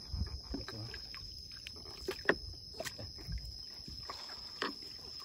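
Gill net being hauled in by hand over the side of a small boat: scattered light knocks, drips and splashes of wet net, fish and water against the hull, over a steady high insect whine.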